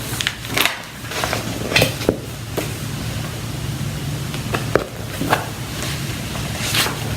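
Paper rustling and light clicks from a picture book's pages being handled and turned, over a steady low hum.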